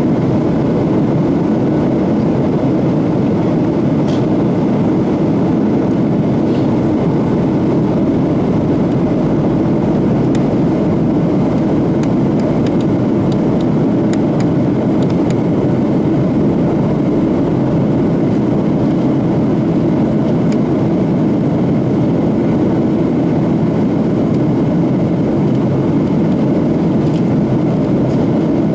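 Steady cabin noise inside a Boeing 737-800 climbing after take-off: its CFM56-7B turbofan engines and the airflow past the fuselage heard as an even low rumble with a hiss over it.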